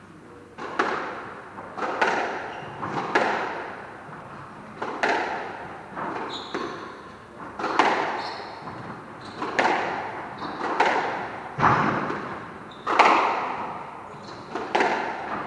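Squash rally: the ball is struck by rackets and hits the court walls, sharp cracks about once a second that ring in the court. Short high shoe squeaks on the wooden floor come around the middle.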